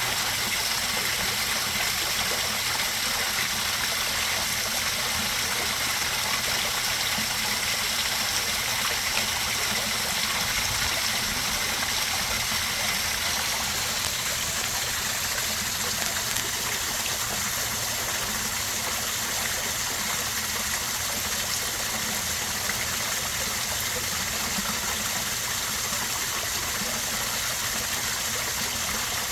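Garden koi pond waterfall, water pouring and rushing steadily into the pond, its tone shifting slightly about halfway through.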